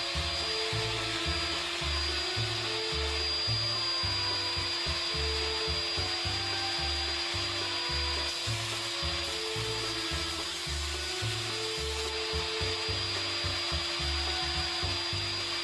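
Background music with a steady, repeating bass line over the steady high whine and hiss of an overhead router still running, with wood rubbing as the workpiece is slid along the table.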